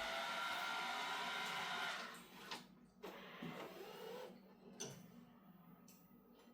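Samsung AI Steam Ultra robot vacuum running its suction fan and brushes, which shut off about two seconds in. A few light clicks and short mechanical whirs follow as the robot moves.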